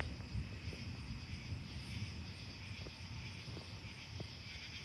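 Faint, low rumbling of distant cloud-to-cloud thunder, rising and falling unevenly, over a steady high chorus of night insects such as crickets.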